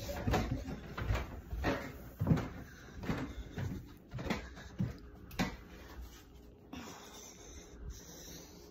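Footsteps going down a flight of stairs, heavy knocking steps about two a second, which stop about five and a half seconds in.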